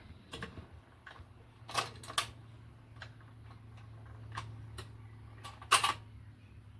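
Scattered sharp clicks and clacks, about nine in all at irregular intervals and loudest near the end, from the 1958 Philco stereo record player's mechanism after the record has finished. Under them runs a steady low hum.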